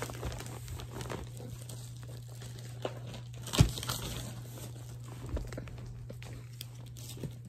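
Packaging crinkling and rustling as a garment is pulled from its wrapping, with scattered crackles and one sharper knock about three and a half seconds in, over a steady low hum.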